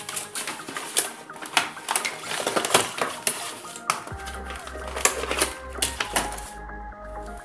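Clear plastic packaging crinkling and crackling as it is handled and pulled open, with many sharp crackles, over background music whose bass beat comes in about halfway through.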